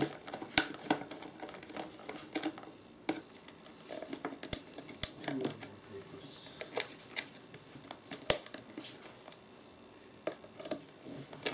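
Brass corner bracket being fitted by hand onto the corner of a small box: irregular small metal clicks and taps as it is pressed and its tabs bent into place, with sharper clicks about half a second in and about eight seconds in.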